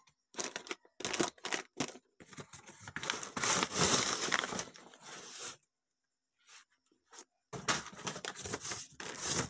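A cardboard box being torn open by hand: a few short rips and scrapes, then a longer stretch of cardboard flaps tearing and rubbing. A silent gap of about two seconds follows, then more cardboard rustling near the end.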